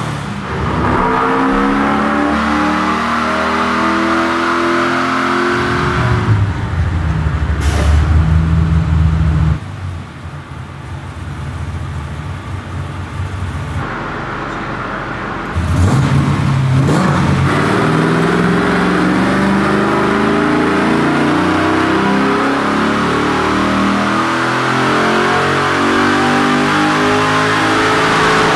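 LS-based V8 in a BMW E36 M3 running under load on a chassis dyno during tuning, its rear tyre spinning the roller. Two long pulls climb steadily in pitch, separated by a quieter, lower-revving spell about ten seconds in.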